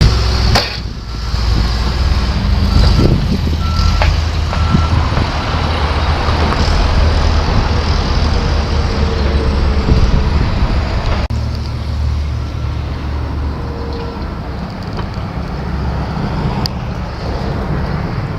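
Heavy construction vehicle engine running steadily, with a reversing alarm beeping in short repeated tones during the first few seconds and faintly again later on.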